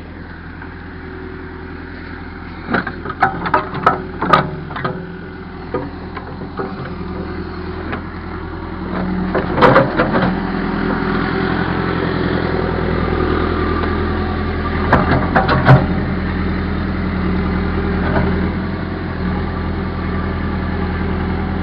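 Caterpillar backhoe's diesel engine running steadily, picking up under load about a third of the way in, with sharp metallic clanks and knocks from the bucket digging. The clanks come in a cluster a few seconds in, louder ones near the middle, and more about three-quarters through.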